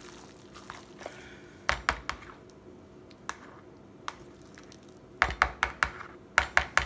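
Metal spoon knocking and scraping against a plastic mixing bowl while stirring tuna salad: a few knocks about two seconds in, then a quick run of knocks in the last two seconds.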